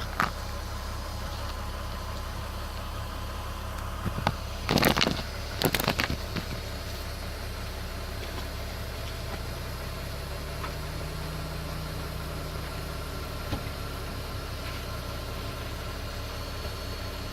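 BMW E46 with its engine idling, and a handful of sharp clunks from the driveline: one right at the start and a cluster of three about four to six seconds in. The owner takes it for a differential-area clunk but doubts the diff bushings are the cause.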